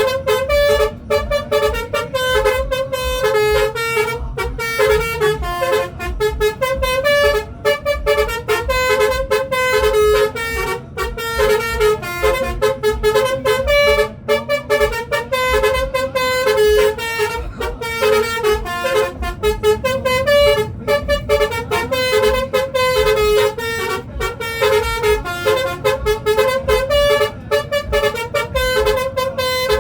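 Multi-tone 'telolet' bus horn playing a long melody of stepped notes, a dance tune, without a break, over a steady low pulse.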